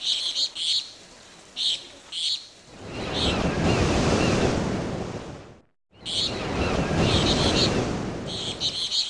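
Small birds chirping in short repeated bursts, then ocean waves breaking in a rising and falling wash with the birdsong going on over it. The sound cuts out for a moment a little past halfway, then the waves and birds resume.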